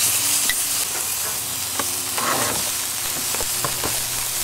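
Steady sizzle on a hot Weber Q3200 gas grill, with a few short clicks of metal tongs against the grill grates and roasting grid, and a brief louder rush about two seconds in.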